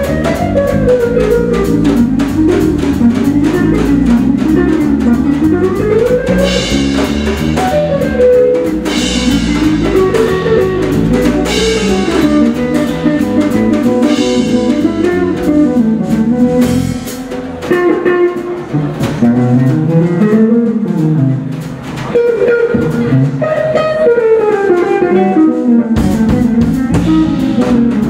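Live jazz band: guitar playing a moving melodic line over drum kit and bass, with the saxophones not playing. Through the second half the bass and low end drop away, then come back in abruptly about two seconds before the end.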